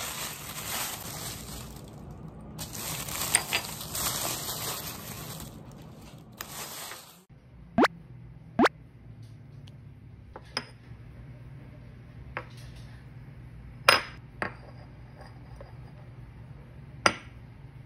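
Crumpled packing paper crinkling as it is unwrapped for about seven seconds. Then small glazed ceramic dishes are set down and handled on a wooden table, giving a series of separate sharp clinks and knocks.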